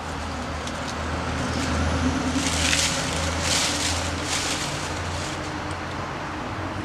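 John Deere E110 riding mower's engine idling with a steady low hum, while dry branches and leaves crackle and rustle as they are loaded into its dump cart, loudest from about two and a half to four and a half seconds in.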